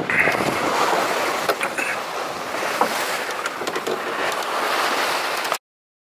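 Sea water rushing along the hull of a Grand Soleil 39 sailing yacht under sail, with wind on the microphone and a few light clicks; the sound cuts off suddenly near the end.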